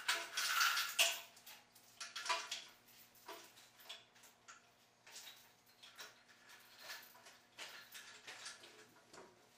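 Steel lifting chain clinking and rattling as it is handled on an engine hoist: a run of irregular metallic clinks, loudest in the first second.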